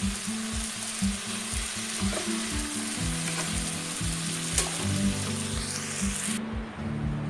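Bean sprouts and carrots sizzling in a hot wok while a spatula stirs them, the stir-fry cooked through and ready to take off the heat. Background music with a steady beat plays throughout, and the sizzling cuts off suddenly near the end.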